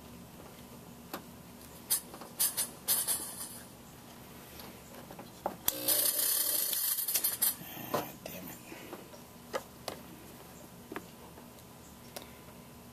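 Hiss of air and smoke escaping from a homemade smoke-test rig's brass fittings: a few short hisses about two to three seconds in, then a louder hiss lasting about two seconds around the middle as smoke pours out, with light clicks scattered throughout.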